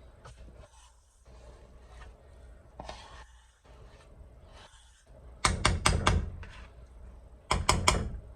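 A utensil rapped against the rim of a cooking pot or bowl in two quick runs of sharp taps, four and then three, knocking off the Maseca mix. Quiet handling and stirring noise comes before them.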